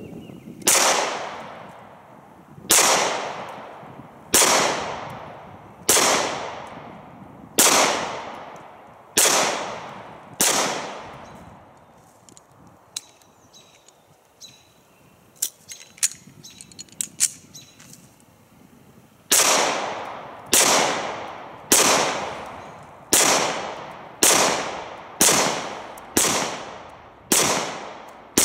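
Springfield XDs 4.0 9mm pistol firing: seven evenly paced shots, each report trailing off in an echo. Then comes a pause of several seconds with a few light clicks, and a second, quicker string of about nine or ten shots.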